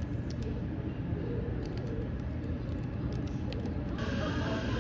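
Keyboard typing, short clicks in small clusters, over a steady cafe ambience of low chatter and rumble; a brighter hiss joins the background about four seconds in.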